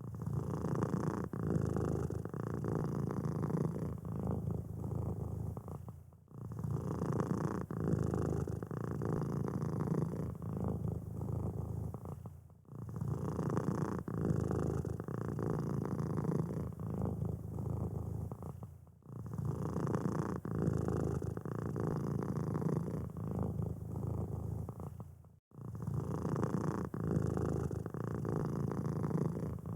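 Domestic cat purring steadily and close up, a low continuous rumble. The purr breaks off briefly about every six seconds and starts again the same way, as a repeating loop.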